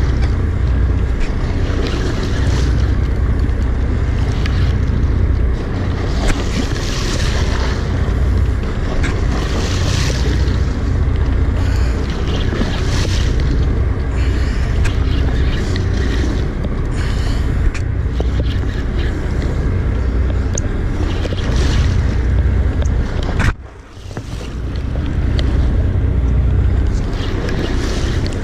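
Wind rumbling on the microphone and sea water splashing against a boat's hull, with bursts of spray hiss every two to three seconds. The sound drops away sharply for about a second near the end, then builds back up.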